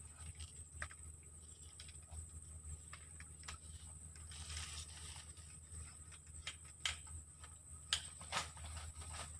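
A steady high insect drone, with scattered light clicks and taps over it.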